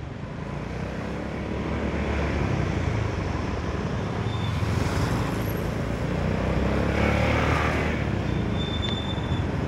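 Honda Forza 300 scooter on the move: its single-cylinder engine runs steadily through a quiet exhaust, under wind and road noise, picking up a little over the first two seconds.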